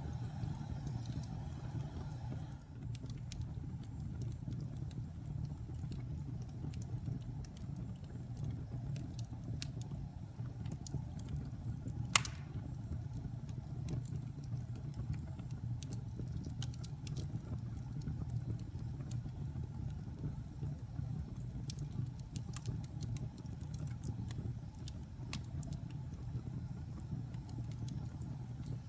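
Wood fire crackling: scattered sharp crackles and snaps over a steady low rumble, with one loud pop about twelve seconds in.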